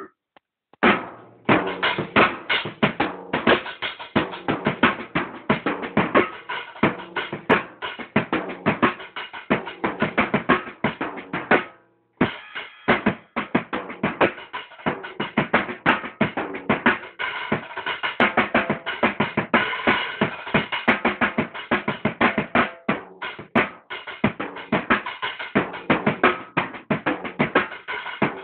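Rapid, dense drumming, a fast stream of strikes with a brief stop about twelve seconds in.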